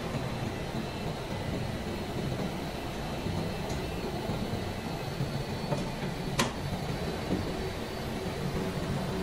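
Plastic pipe-making machinery running with a steady rumble and hum, a few light clicks, and one sharp click about six seconds in.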